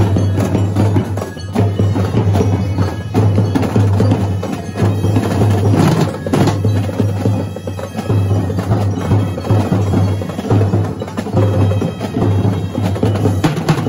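Marching drumline of a drum and bugle corps playing a fast cadence: massed snare drums with rapid, dense stick hits over a pulsing low drum beat.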